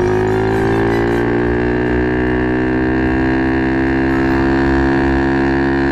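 SSR 110 pit bike's small single-cylinder four-stroke engine running under way at steady revs. Its drone rises slightly in pitch in the first second, then holds even.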